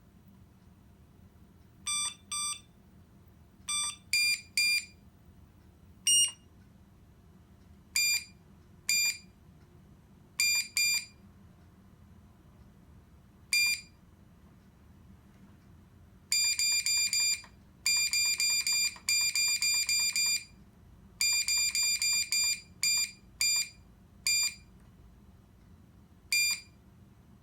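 Short, high-pitched electronic beeps from a small buzzer: single and paired beeps at irregular intervals, then rapid strings of beeps for several seconds about two-thirds of the way through.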